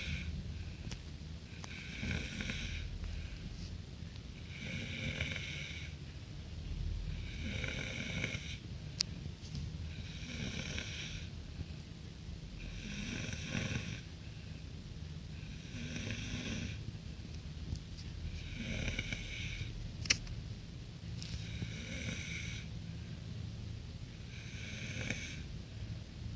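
A person snoring in sleep: a regular snore on each breath, about every two and a half to three seconds, with a steady low hum underneath and two brief sharp clicks.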